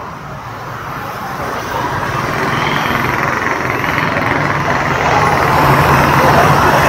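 City street traffic, with a motorbike engine growing steadily louder as it comes near.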